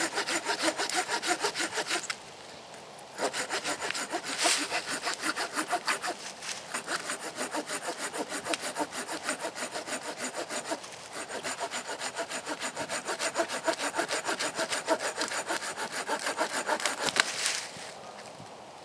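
Hand saw cutting through a small log with quick back-and-forth strokes, about four a second. The sawing pauses for about a second two seconds in, then runs on and stops shortly before the end.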